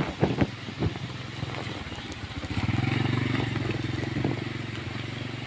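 Small underbone motorcycle passing close by at low speed: its steady engine note swells about two and a half seconds in and eases off as it moves away. A few sharp knocks near the start.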